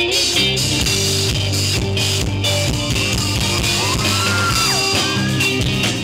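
Rock band playing live on stage, with electric guitars over bass and drums.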